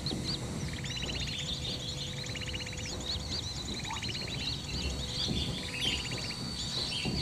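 Many small birds chirping and calling, with a short buzzy rattling trill that repeats about every two seconds. The calls include sooty-headed bulbul (kutilang) calls played from an MP3 player as a lure.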